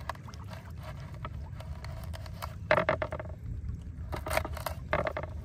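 Fillet knife cutting through a chunk of gizzard shad on a plastic cutting board: a few short scraping strokes around three seconds in and two more near the end, over a steady low rumble.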